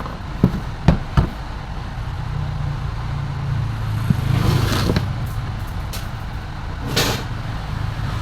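A few sharp clicks and knocks of tools and parts being handled as a mixer grinder is taken apart, three in the first second and a half, over a steady low rumble that swells twice later on.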